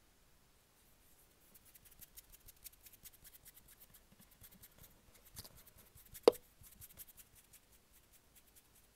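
Faint handling sounds of a hand moving a small plastic light-up toy lightsaber about: soft rustling and fine crackles, with one sharp click about six seconds in.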